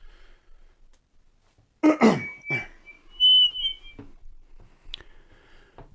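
A quick falling swoop, then a short high whistled tone followed by a higher, wavering one, with a few faint clicks near the end.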